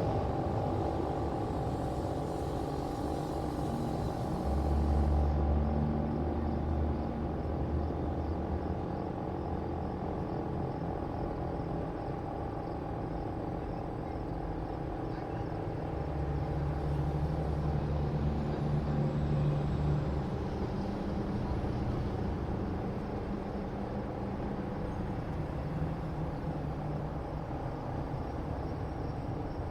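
Outdoor street sound: a motor vehicle's engine rumbles past twice, over a background of faint steady tones.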